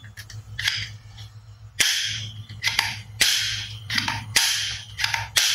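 Toy pistol snapping sharply about nine times at uneven intervals as it is worked by hand, each snap with a short bright tail.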